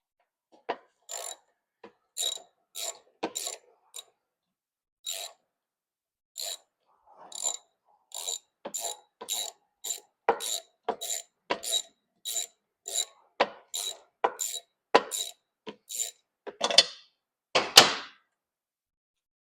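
Ratchet wrench with a 3/8 socket being worked back and forth to loosen the carburetor mounting bolts on a Briggs & Stratton mower engine: short bursts of pawl clicks, about two a second once it settles into a rhythm, with two longer, louder runs near the end.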